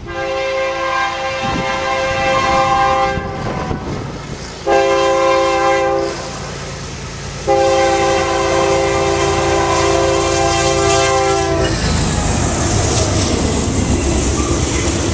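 Diesel freight locomotive's multi-note air horn sounding for a grade crossing: a long blast, a short blast, then a long blast that ends about twelve seconds in. After it comes the loud rumble of the locomotives and the rattle of the freight cars rolling past.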